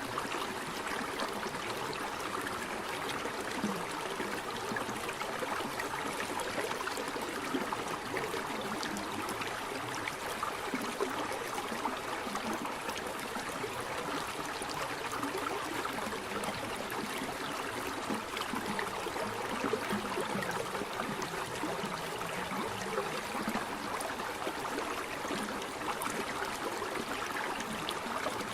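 Water running and splashing steadily over rocks in a cascade.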